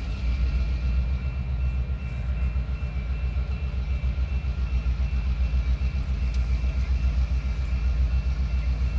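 Locomotive engine running with a deep, rapidly pulsing rumble, and faint steady high tones above it.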